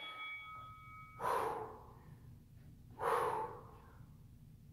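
A woman's sharp exhales of effort, twice, about two seconds apart, one with each rep of a dumbbell squat and overhead press.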